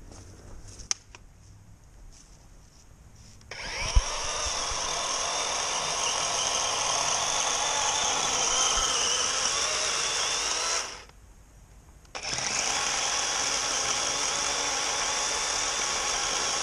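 DeWalt battery electric chainsaw running and cutting into wood, starting about three and a half seconds in. It stops for about a second just before halfway, then starts again and keeps running.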